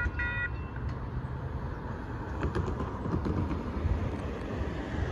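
Railroad crossing warning bell sounding in repeating pulses, stopping about half a second in as the gates finish rising; after that, a steady low rumble.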